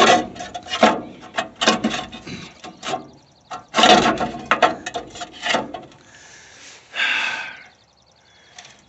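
Rusty steel smoke box of a pig cooker being handled: a string of metal clanks and rattles as the expanded-metal insert and door are moved, then a longer grating scrape about seven seconds in as the door is swung shut.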